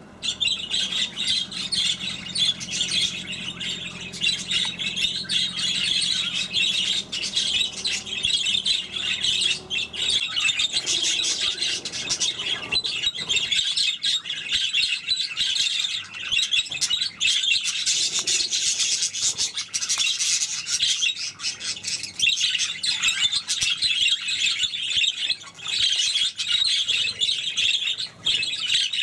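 A flock of budgerigars chattering without pause, a dense stream of rapid chirps and warbles.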